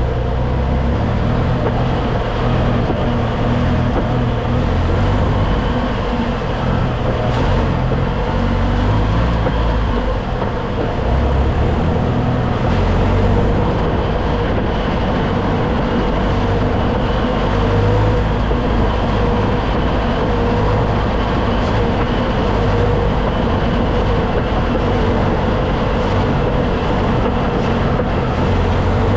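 2006 Jeep Wrangler TJ's 2.4-litre four-cylinder engine running in low gear, its pitch rising and falling as the throttle is pressed and quickly released, with a few faint knocks. The test is meant to provoke a drivetrain clunk on throttle release, which the owner suspects comes from a worn engine or transmission mount or from driveline slack.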